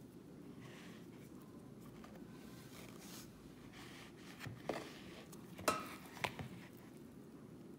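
Hands working soft dough in a plastic mixing bowl on a countertop: faint rubbing and handling, with a few light knocks about four and a half to six and a half seconds in, the loudest near the middle of them. A low steady hum sits underneath.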